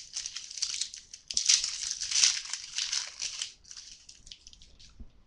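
Crinkling and rustling of trading-card pack wrappers and cards being handled. It is loudest in the middle and dies down near the end.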